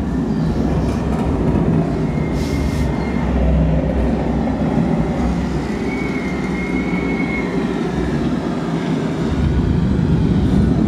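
Loud, steady low rumble played through an exhibit's speaker system, strong enough to make the floor vibrate, with a couple of faint thin squeaking tones over it.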